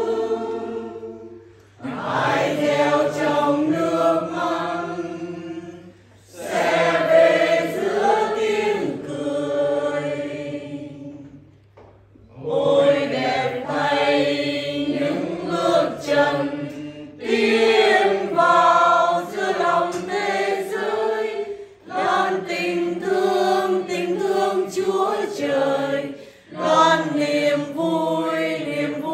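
A congregation singing a Vietnamese hymn together in several-second sung phrases, with short breaks for breath between them. A faint steady low hum lies underneath through the first half.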